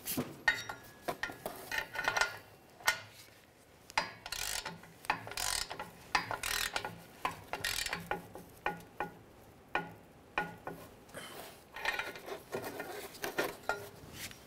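Ratchet clicking and metal clinks from an O2 sensor socket as a new downstream oxygen sensor is tightened into the exhaust pipe. The clicks come irregularly, in short runs.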